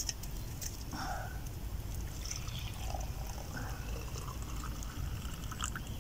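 Water poured from a small metal camping pot into a cup, a soft trickling splash, over a steady low rumble.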